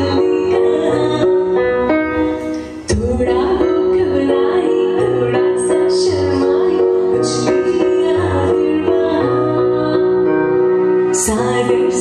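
A woman singing a slow melody over an electronic keyboard playing sustained chords and a bass line. The music dips briefly a little under three seconds in, then carries on.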